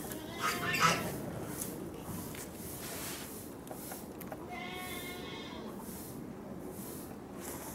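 Two short bleat-like animal calls, the first and louder about a second in, the second about five seconds in.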